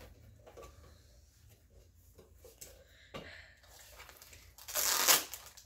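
Small rustles and light taps of hands on a cardboard box, then a loud rip of clear packing tape being peeled off it about three-quarters of the way through.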